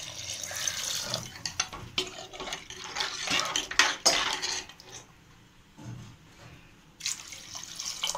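Water poured in a thin stream into curry gravy in an aluminium pressure cooker, splashing, while a steel ladle clinks and scrapes against the pot as the water is stirred in. The clinks are sharp and rapid in the first few seconds, there is a short lull, and the pouring splash returns near the end.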